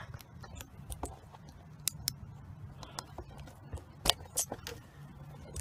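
Handling noise while a freshly caught largemouth bass is held up close: a scatter of irregular sharp clicks and knocks, the loudest about four seconds in, over a low steady hum.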